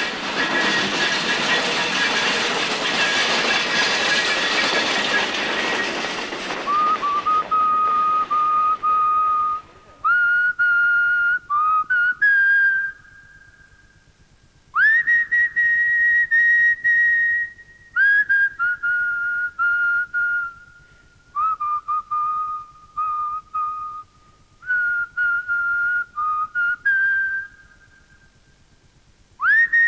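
A loud rushing noise fades out about six seconds in. After it, someone whistles a slow tune in long held notes, phrase by phrase, with short pauses between phrases.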